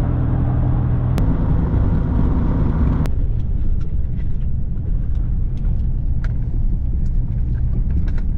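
A vehicle's engine runs with a steady low drone. About three seconds in it gives way abruptly to a low rumble of wind on the microphone, with scattered faint clicks.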